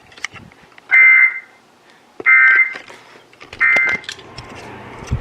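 Three short, buzzy bursts of Emergency Alert System (SAME) digital data tones, about a second apart: the end-of-message signal that closes a broadcast weather warning.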